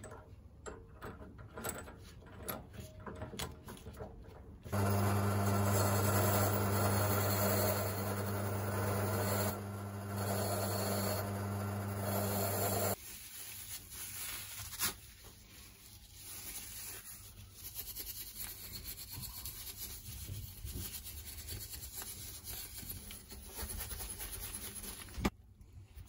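Clarke pillar drill spinning a wire wheel brush: a steady motor hum with a harsh scratching of rusty padlock metal against the wire bristles, starting about five seconds in and stopping abruptly about eight seconds later, after a few sharp clicks of the chuck being tightened. Then steel wool scrubbing the corroded padlock parts by hand, with a couple of light knocks.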